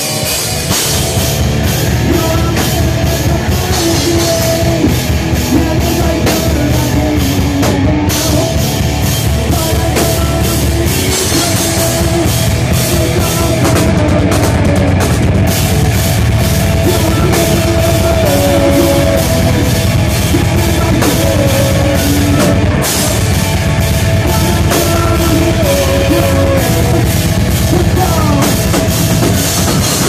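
Live heavy rock band playing loud and without a break: electric guitars through amplifiers over a driving drum kit beat.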